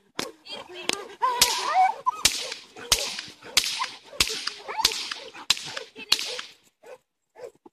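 A protection-training helper's whip cracking eight times in a steady rhythm, about one sharp crack every two-thirds of a second.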